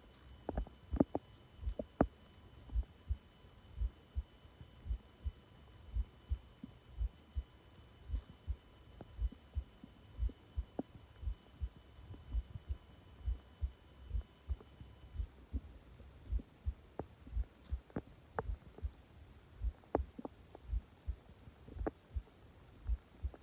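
Heartbeat thumping steadily at about 85 beats a minute, picked up by a microphone pressed close against the body, with a few scattered sharp clicks.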